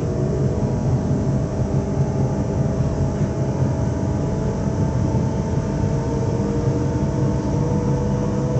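Z2N electric multiple unit standing still, its on-board equipment running with a steady low rumble and several constant hum tones. Near the end a couple of tones slowly rise in pitch.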